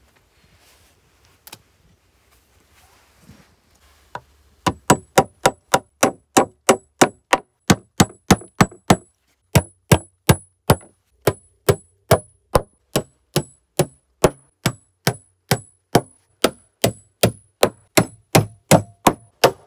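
Hammer driving steel nails into split-log floor planks, starting about five seconds in: a steady run of sharp strikes, about three a second, each with a bright metallic ring from the nail. There is a short pause about nine seconds in, then the strikes go on a little slower.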